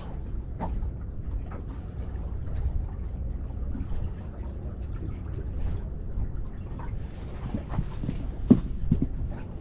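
Wind rumbling on the microphone and water lapping against the boat's hull, with a few knocks near the end, the sharpest about eight and a half seconds in.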